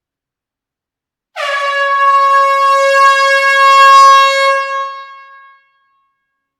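Air horn giving one long, loud blast with a steady pitch, starting about a second and a half in and fading out after about four seconds, sounded inside an enclosed hall.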